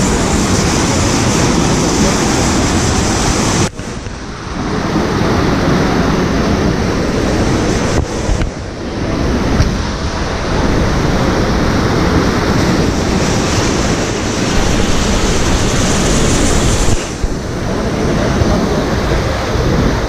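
Steady rush of churning white water in a river rapids ride channel, with wind buffeting the microphone. The noise drops sharply for a moment three times.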